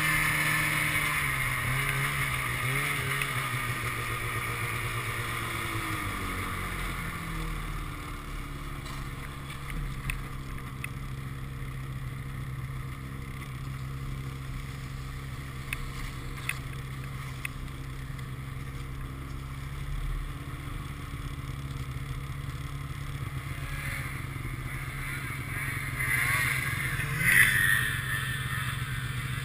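Polaris snowmobile engine running under way. Its pitch falls over the first several seconds as the sled slows, then holds steady, with a brief rise near the end.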